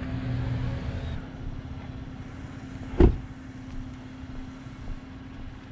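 Pickup truck idling with a steady low hum, and a single sharp knock about three seconds in.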